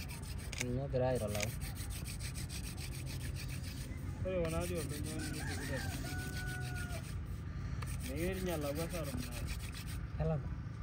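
Masai fire-making by friction: a wooden stick rubbed hard against a wooden base, a fast, even rubbing of wood on wood.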